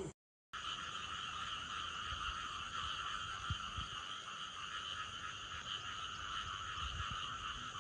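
Dense, steady night chorus of frogs and insects, a continuous shrill pulsing that starts after a brief gap about half a second in.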